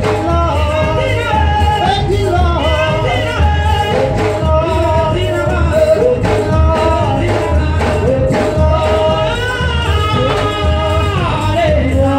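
A woman singing into a microphone over amplified church music with a steady, pulsing bass beat.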